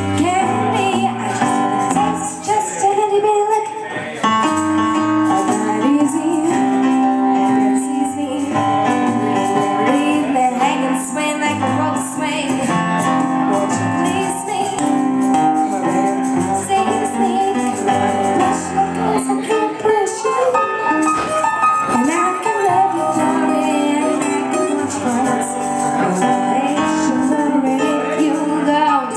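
Live acoustic duo: a woman singing over a digital piano, with a steel-string acoustic guitar played alongside.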